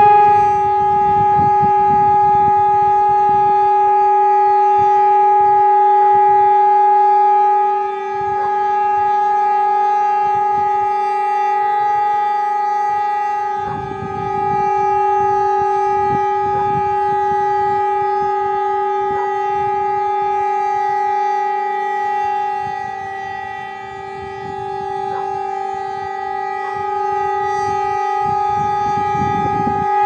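HOWLER-M electronic siren sounding one steady, unwavering tone: the continuous-tone signal of a siren test. A low rumbling noise comes and goes underneath it a few times.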